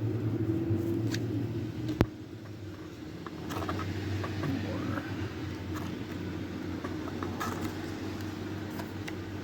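Paper notes and small items being handled, with one sharp click about two seconds in and scattered light taps and rustles after, over a steady low hum.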